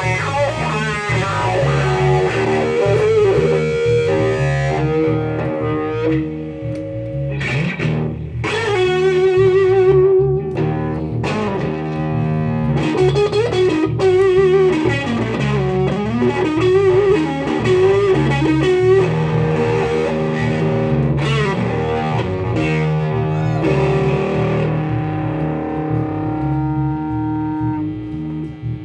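Live blues-rock instrumental: an electric guitar solo of held notes with wide vibrato and string bends over a steady electric bass line.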